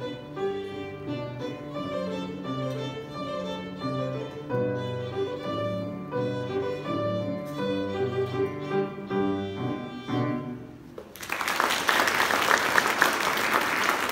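A young violinist playing with piano accompaniment, the piece finishing about eleven seconds in. Audience applause follows, louder than the music.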